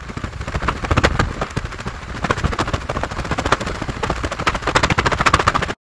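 Wind buffeting the phone's microphone, an uneven crackling rumble that cuts off suddenly near the end.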